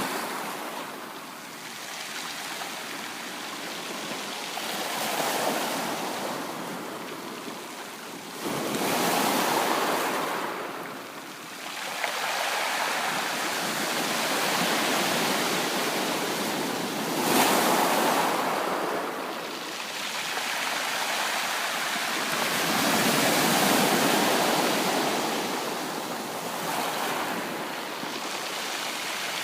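Sea waves breaking and washing up a shore, the surf swelling and falling back every four to six seconds.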